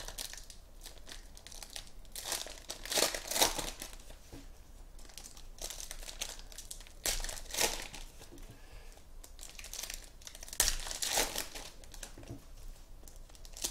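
Foil trading-card pack wrappers crinkling and tearing open in the hands, in three main bursts with quieter rustling between.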